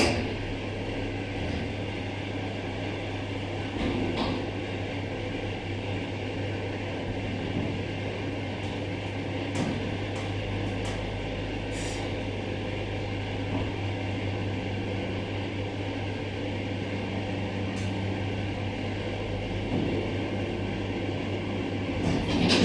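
Steady hum inside a hydraulic elevator car: the cab's ventilation fan running, with a low steady drone underneath and a few faint clicks. A brief louder sound comes right at the end.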